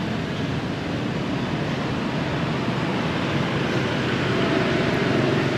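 Steady street traffic noise from passing vehicles, an even wash of road sound with no single event standing out; a faint steady tone joins it about four seconds in.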